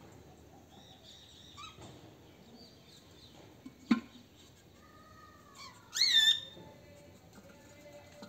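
Caged parrots calling: faint chirps, then one loud, short call about six seconds in. A sharp click comes about four seconds in.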